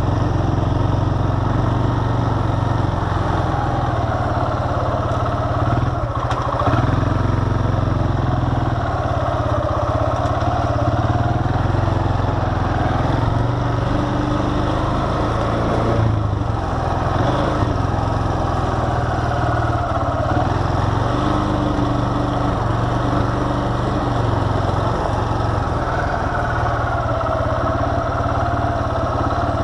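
ATV engine running steadily while the machine is ridden along a dirt trail, a low drone with a whine that rises and falls a little with the throttle.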